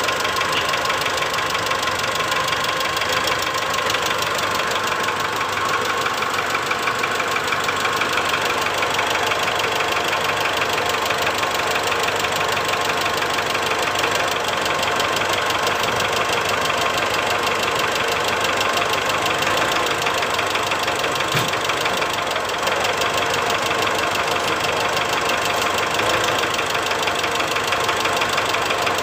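Mitsubishi Strada Triton's four-cylinder engine idling with a rough, rapid tak-tak-tak knock during an injector cut-out test on injector number 1. The mechanic suspects the number 1 injector is behind the knock.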